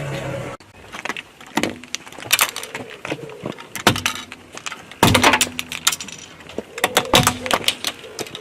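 Eyeglasses cracking and snapping under a car tyre: a rapid, irregular run of sharp cracks and crunches, loudest about five seconds in. Music stops suddenly just before the cracking begins.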